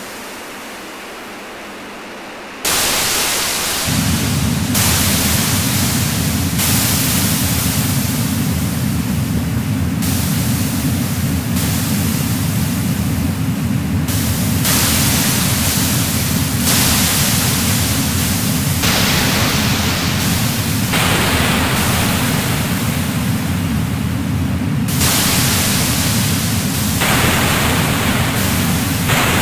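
Electronic noise music: layered filtered noise with no tune. It jumps louder about two and a half seconds in, and a steady low rumbling band of noise comes in a second later. Above it, a loud hiss changes its colour abruptly every second or two.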